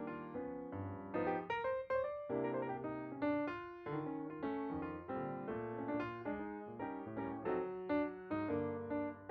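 Background piano music: a gentle melody of separate struck notes, each fading away.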